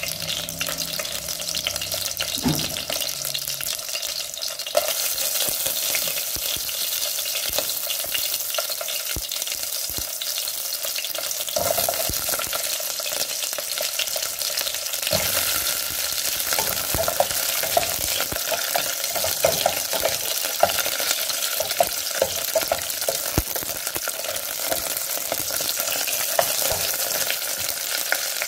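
Steady sizzling hiss from a steel pot on a hot stove, getting louder about five seconds in. Scattered light knocks come as lemongrass, shallots, garlic and star anise are dropped in.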